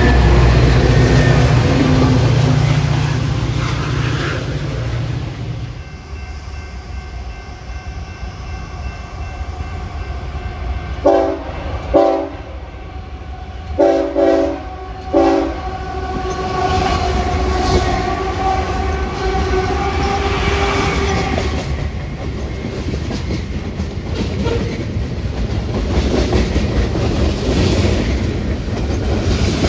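A train rolling past: heavy locomotive rumble for the first few seconds, then the steady rolling clatter of the cars. About halfway through, a locomotive horn sounds a series of short blasts.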